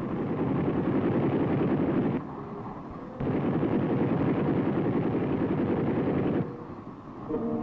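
Two long bursts of rapid machine-gun fire from a helicopter's door-mounted M60, the first about two seconds and the second about three, a second apart. Under them runs the steady drone of the helicopter in flight.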